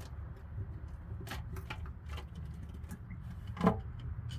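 Short sharp metal clicks and scrapes, with one louder knock about three and a half seconds in, as a flathead screwdriver is worked into the sealant seam of an oil pan to pry it off the engine. A low steady hum runs underneath.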